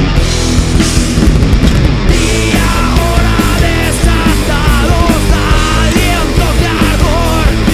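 A rock band playing live, with electric guitars and drums. A man's lead vocal comes in about two and a half seconds in and carries on over the band.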